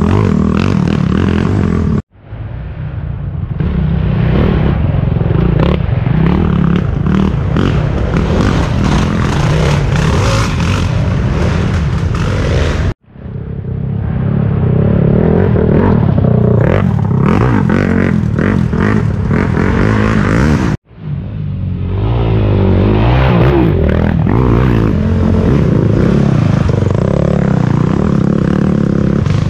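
Racing quad (ATV) engines running hard over rough ground, with clatter and scraping from the machines and terrain. The sound drops out suddenly three times, about two, thirteen and twenty-one seconds in, and fades back in each time.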